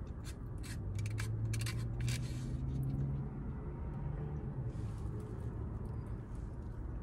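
Quiet eating sounds: a few sharp clicks of a plastic fork against a bowl in the first couple of seconds, then short chewing or scraping noises, over a low hum that rises slightly in pitch for a few seconds.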